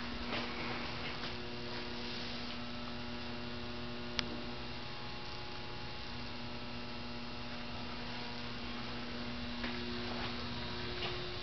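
Steady low hum over a background hiss, with a single sharp click about four seconds in.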